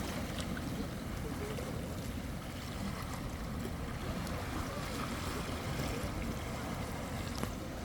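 Sea waves washing on the shore in a steady, unbroken rush, with wind rumbling on the microphone.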